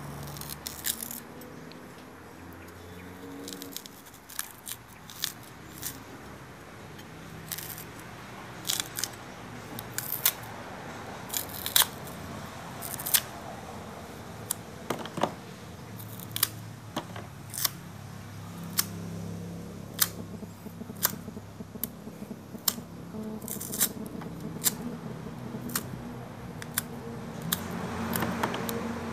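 Knife cutting the thick peel off unripe green cooking bananas: irregular sharp clicks and snicks as the blade bites through the skin, one or two a second.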